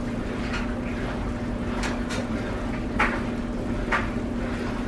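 Silicone spatula stirring diced apples in a skillet of cinnamon-sugar juice, with a short scrape against the pan about once a second over the soft simmer of the juice.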